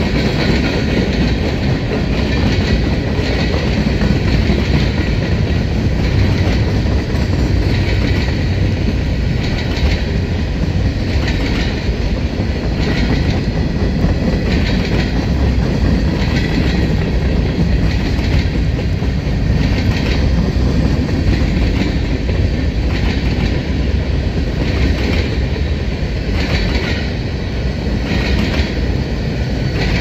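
Freight cars of a long CN train rolling past: a steady rumble of steel wheels on rail, with a repeated clickety-clack as the wheels cross rail joints.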